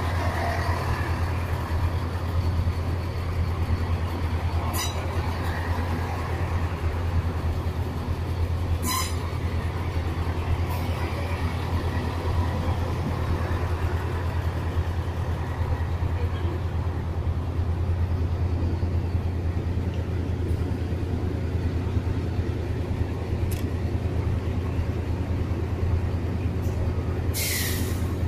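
Chiltern Railways diesel multiple unit moving slowly along the platform, its diesel engines running with a steady low drone. A few brief clicks, and a short sharp hiss near the end.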